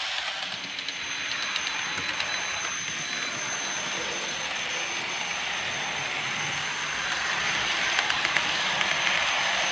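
Bachmann OO gauge Blue Pullman model train running on its track, its wheels rattling over the rails, with a steady high-pitched whine that comes in about half a second in. The whine comes from a dry motor bearing in the rear power car.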